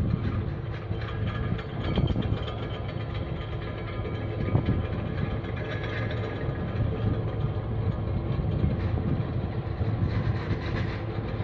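Steady low mechanical rumble with a droning hum from the container ship's engines as it passes at slow harbour speed.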